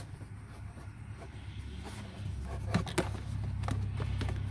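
Faint rubbing and handling of plastic glove box parts being refitted in a Kia Niro's cabin, with two light clicks close together about three seconds in. A low rumble grows louder a little past halfway.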